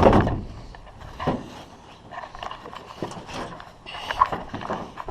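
Cut wooden deck panel being test-fitted into a jon boat: a heavy knock and scrape as it goes in, then scattered knocks and clicks as it is shifted into place.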